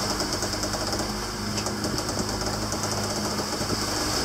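A catamaran's engine running steadily, a low hum under a fast, even mechanical clatter.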